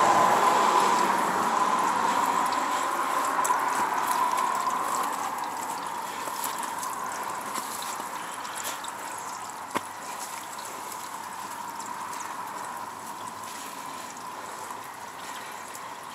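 Water trickling along a shallow drainage trench: a steady noise that slowly fades, with a single sharp click about ten seconds in.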